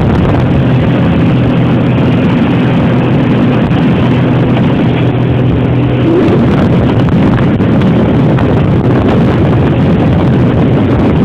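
Motorboat engine running steadily under way, with wind noise on the microphone.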